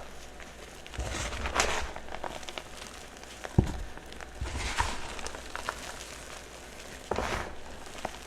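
Soft chalk blocks crunching and crumbling in several separate bursts, with a sharp crack a little past the middle.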